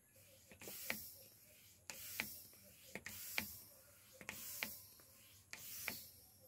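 Hand-operated smoke pump being worked in steady strokes, about one every 1.2 seconds. Each stroke gives a rush of air and a short squeak. It is pushing smoke into the intake to show up a vacuum leak.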